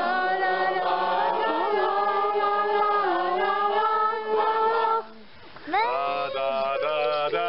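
A group of voices singing unaccompanied, holding long notes that slide slowly between pitches. The singing breaks off briefly about five seconds in, then comes back in with a rising swoop.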